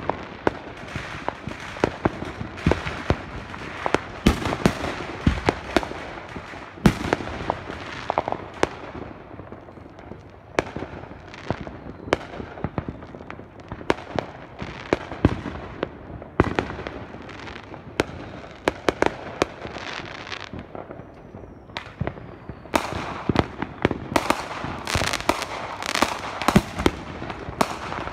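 Many fireworks and firecrackers going off at once: a steady wash of crackling, with sharp louder bangs scattered throughout, coming in a rapid run of bangs over the last few seconds.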